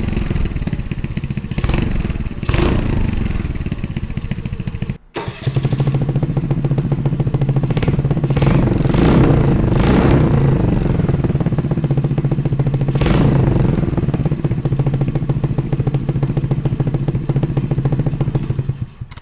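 Honda Navi's small single-cylinder four-stroke engine running through a Hotlap Mamushi aftermarket exhaust: short throttle blips, then after a brief break a steady idle with several quick revs.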